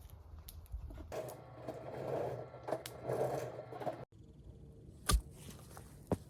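Scraping and crackling handling noises with scattered sharp clicks, cut off abruptly about four seconds in, then a single sharp knock about a second later.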